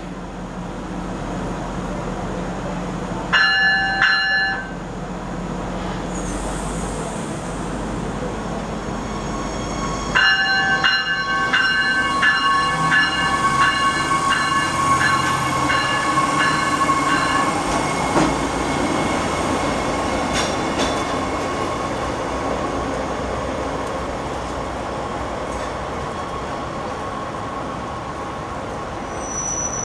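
Stadler diesel multiple-unit light-rail car idling, then sounding one short horn blast about three seconds in. About ten seconds in its bell rings repeatedly, roughly twice a second, for several seconds while the diesel engine throttles up and the train pulls away with a steady whine. The running sound then slowly fades as it moves off.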